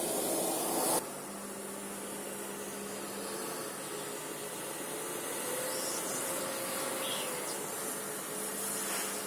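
Vacuum cleaner running with a steady whooshing hiss that drops suddenly about a second in, then runs on quieter with a low steady hum.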